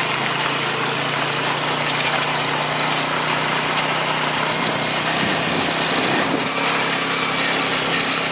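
Small engine of a three-wheeled motor scooter running steadily while riding, under a dense, even hiss.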